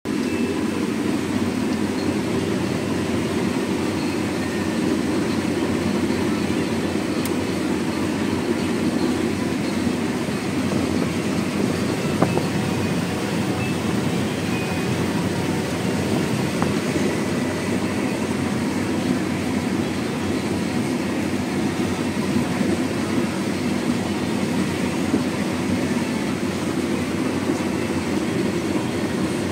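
Claas Lexion 750 combine harvester running steadily as it harvests corn with a 12-row header: a constant, heavy mechanical drone that never lets up.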